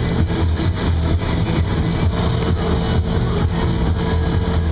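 Boat's motor running steadily underway: a low hum with a faint regular pulse.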